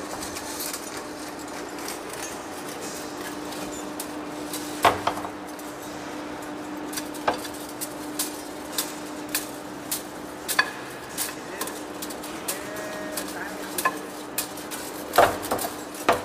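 Steady machine hum with irregular sharp metallic clinks and knocks, coming about once every half second to second from a few seconds in, with a louder cluster near the end.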